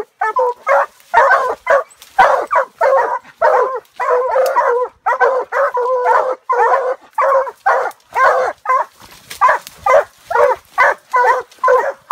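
Walker coonhounds barking treed at the base of a tree, a fast, steady run of loud barks from more than one dog. It is the tree bark that tells the hunters a raccoon has been run up the tree.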